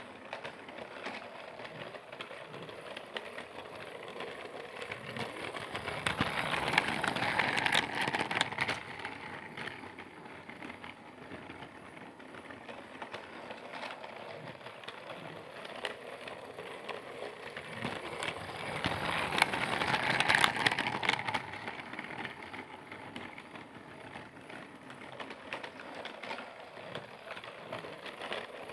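A Percy train running along its track: a steady whirring rattle with fine clicking that grows loud twice, about twelve seconds apart, as it comes past close by and moves away again.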